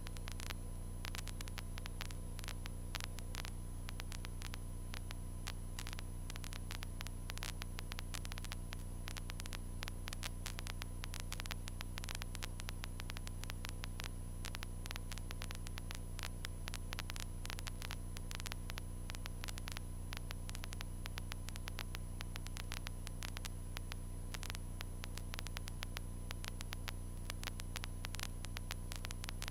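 Steady low electrical hum and hiss on a light aircraft's intercom audio feed, crackling with frequent irregular static clicks.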